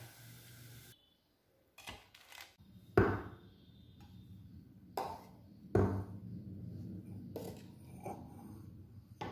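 A steel spoon clinking against a small stainless steel bowl as tomato chutney is spooned in: several separate knocks, some with a short ring, roughly a second apart.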